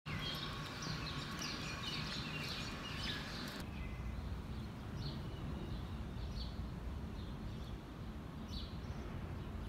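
Outdoor ambience: small birds chirping over a steady low rumble. The chirping is busy for the first three or four seconds, then thins to a few scattered calls.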